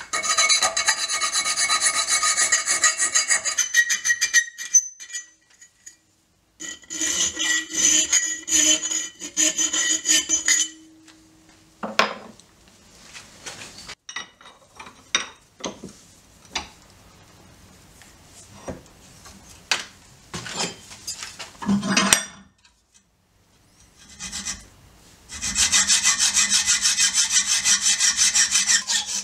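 A needle file rasping back and forth in a hole in a bent steel plate held in a bench vise, in two spells. Then scattered clicks and knocks as the steel is handled and reset in the vise. Near the end comes a hacksaw cutting the steel with steady back-and-forth strokes.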